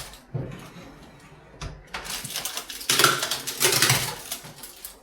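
Hard objects being handled and set down: a couple of knocks early on, then a louder stretch of clattering and rattling in the second half.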